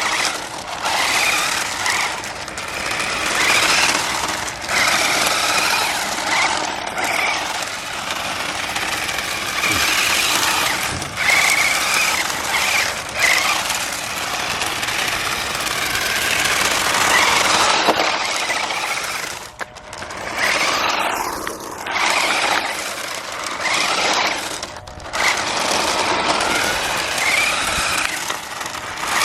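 Jada Toys RC drift car's small electric motor whining up and down in pitch with the throttle, over rough wheel and tyre noise. It comes in repeated bursts with a few brief let-offs.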